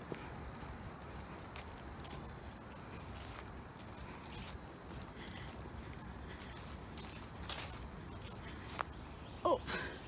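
A steady, high-pitched insect trill holding one unchanging tone, over a faint low rustle. A couple of soft knocks come in the second half, and a brief voice sound comes near the end.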